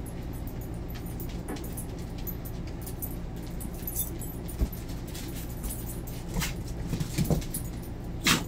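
Puppies playing and tugging at a plush toy on a hard floor, with scuffling and a few short puppy yips and growls; the loudest comes near the end. A steady low hum runs underneath.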